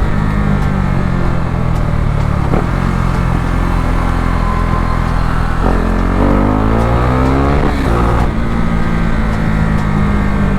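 KTM RC 390's single-cylinder engine pulling the bike along at speed. About six seconds in the engine note climbs steeply as it accelerates, then drops back about eight seconds in at an upshift.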